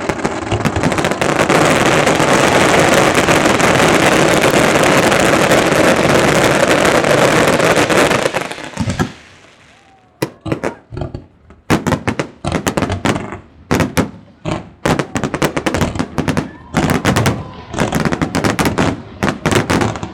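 Fireworks salvo at close range. A dense, unbroken barrage lasts about eight seconds and dies away, then comes a rapid, irregular string of separate sharp bangs, several a second.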